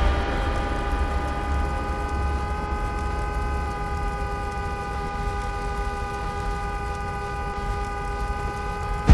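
Struck bell ringing out: several clear, steady tones slowly fading over a low hum, until it is struck again at the very end.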